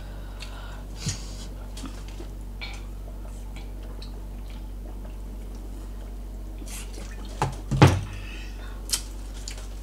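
Drinking from a plastic water bottle and a carton of coconut water: faint swallowing clicks, then a few louder knocks about seven to nine seconds in, the loudest a dull thump as the carton is set down on the table.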